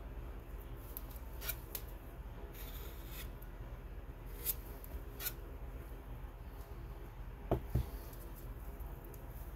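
Faint, short scrapes and clicks of a glass muller and palette knife working oil paint on the mulling plate. About three-quarters of the way through come two quick knocks, the glass muller being set down on the plate.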